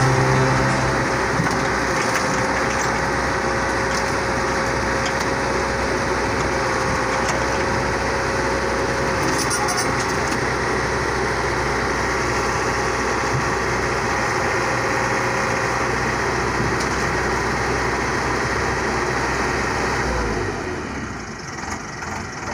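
Tata Hitachi excavator's diesel engine running steadily, with a steady whine over it, while the machine is loaded onto a trailer; the sound drops off near the end.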